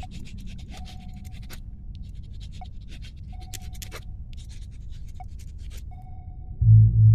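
Pencil scratching on paper in quick bursts of strokes, over a low hum and a repeating electronic beep: a longer tone, then a short blip, every two and a half seconds or so. Near the end a loud, deep rumble starts suddenly.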